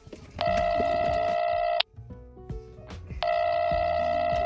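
Mobile phone ringtone ringing twice: two steady electronic tones of about a second and a half each, with a pause of about the same length between them.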